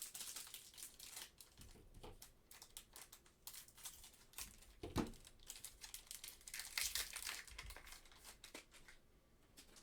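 Trading card pack wrapper crinkling and tearing as a pack is opened and the cards handled, in irregular quiet rustles with a few louder crackles.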